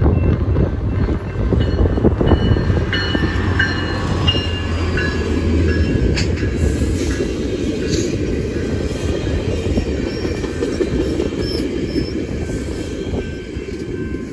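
Metrolink commuter train passing close by. A diesel locomotive's low engine hum is strong for the first several seconds, then bilevel coaches roll past with a steady wheel-on-rail rumble, clicks over rail joints and brief high wheel squeals. The sound eases off near the end as the last car clears.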